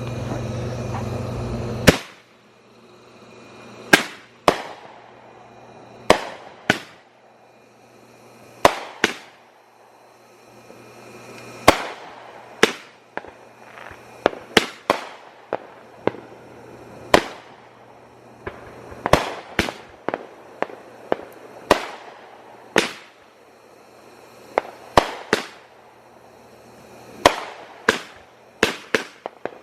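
A 350-gram consumer firework cake firing its shots one after another: sharp bangs, each trailing off briefly, irregularly spaced from about a half second to two seconds apart. The first couple of seconds hold a steady rushing noise before the bangs begin.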